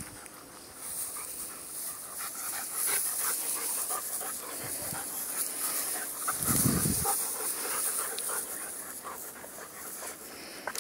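Several German Shepherd dogs panting as they run through long grass, with the grass rustling around them. A low thump comes about six and a half seconds in.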